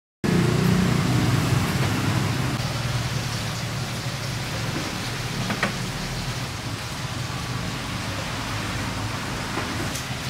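Steady background hiss with a low hum, a little louder at first. There is a faint click about halfway through and another near the end.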